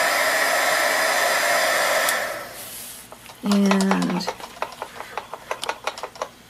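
Heat gun blowing steadily on the wax to soften it, switched off about two seconds in and dying away. After a brief spoken word, a quick run of light clicks and rustles from the paper towel being handled.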